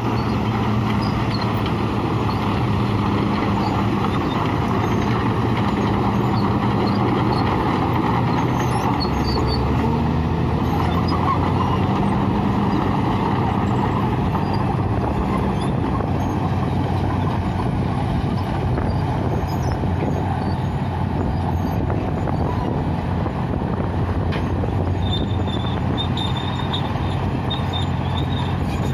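Bulldozer's heavy diesel engine running steadily under load, its pitch shifting a little. A thin, high, stuttering squeal joins it near the end.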